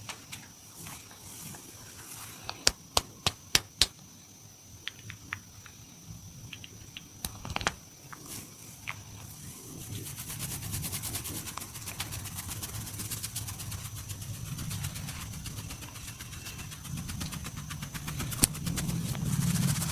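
Hands-on upper-body massage: a quick run of five or six sharp cracks a few seconds in, a few softer clicks, then from about halfway fast, continuous patting and tapping of hands on the body with dull thuds underneath.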